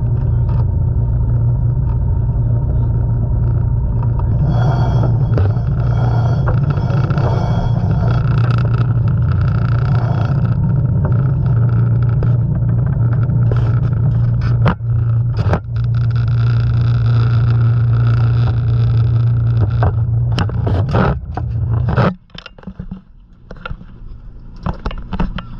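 Wind buffeting an action camera's microphone on an open sailboat deck: a loud, steady low rumble, with a few sharp knocks partway through. It drops away suddenly near the end.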